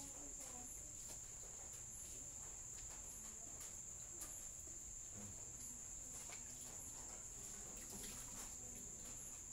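A steady high-pitched insect trill, with faint scattered clicks.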